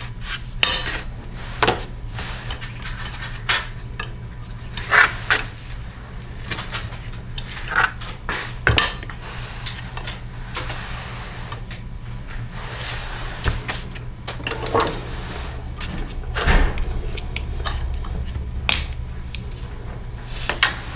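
Irregular metallic clinks and knocks of hand tools and small parts being handled while a Toro push mower is taken apart, over a steady low hum.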